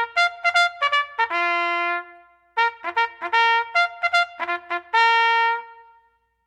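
Background music: a solo brass melody, quick short notes alternating with held notes, in two phrases with a brief pause between them.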